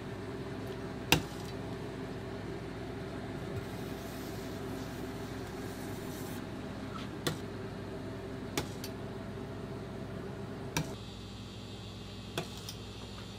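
Steady hum of kitchen machinery, with a handful of sharp clicks as a metal bench scraper and icing spatula work buttercream on a metal cake turntable. The loudest click comes a little over a second in. The hum changes and thins near the end.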